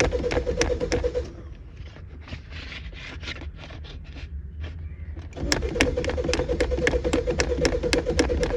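Suzuki FX's three-cylinder engine being cranked by the starter motor without catching: a rhythmic chugging of about four to five strokes a second over the starter's whine. It stops about a second in, leaves a quieter stretch of scattered clicks, then starts cranking again about five seconds in. The engine is refusing to start.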